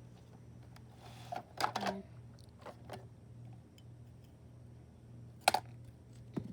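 Small plastic clicks and scraping as a Roomba cleaning tool is worked against the brushes to pull out hair and dust: a short scrape about a second in, a few light clicks, and a sharper click near the end.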